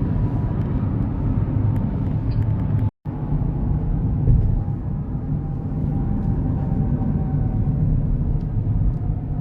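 Steady low rumble of road and engine noise inside a moving car's cabin. It cuts out for a moment about three seconds in.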